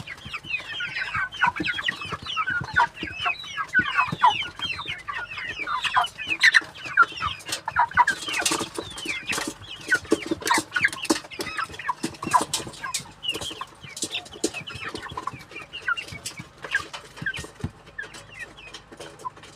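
A flock of broiler chickens feeding up close: many short, falling calls overlapping one another, with sharp clicks of beaks pecking at the feed mixed in.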